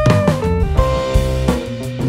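Background music: pitched melodic notes over a drum beat.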